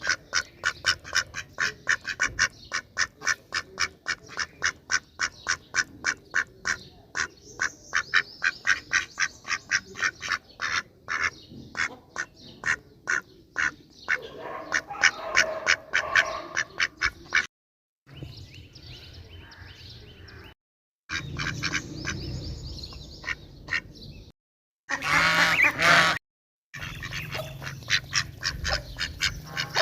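Ducks quacking in rapid runs of about three quacks a second. After about seventeen seconds the sound is broken by several abrupt cuts, with quieter stretches between them and a brief loud burst about twenty-five seconds in.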